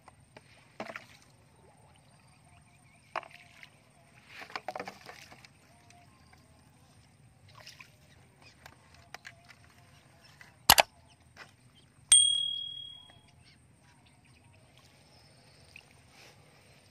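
Empty plastic drink bottles being handled in a plastic basin: scattered light rattles and knocks, with one sharp knock a little past halfway, then a short ringing tone that fades over about a second.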